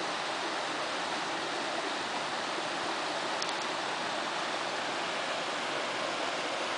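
Mountain stream water running over granite rocks in a gorge, a steady, even rushing hiss with no low rumble.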